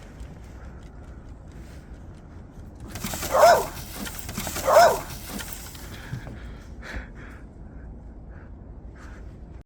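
A puppy barks twice, about a second and a half apart, each bark short and rising then falling in pitch.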